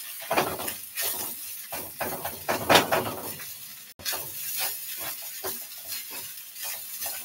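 Rice sizzling in a hot pan while it is stirred and turned with a spoon, the spoon scraping and knocking against the pan in quick strokes, loudest about half a second in and around three seconds in.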